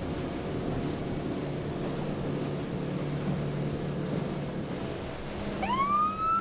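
Patrol boat's engine running steadily under wind noise, then near the end the boat's siren gives a short rising whoop, the signal for another boat to stop for a water safety check.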